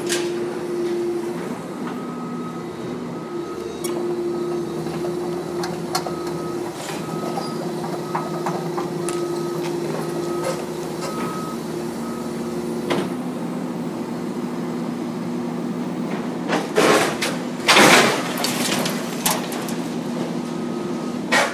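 Komatsu hydraulic excavator running steadily, its engine and hydraulics droning, with a faint repeated beep around the middle. Near the end come two loud crashes of metal and debris as the demolition bucket tears into the building.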